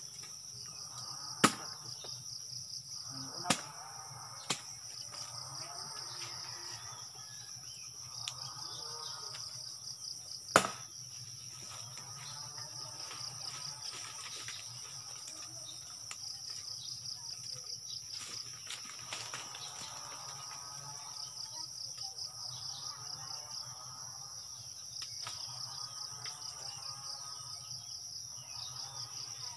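Steady, shrill chorus of insects with a fast pulsing texture. A few sharp knocks or snaps cut through in the first ten seconds or so, the loudest about a second and a half in.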